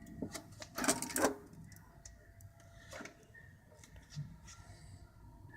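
Handling noise: light clicks and rattles of small parts being handled close to the phone's microphone, loudest in a quick cluster about a second in, then a few scattered clicks.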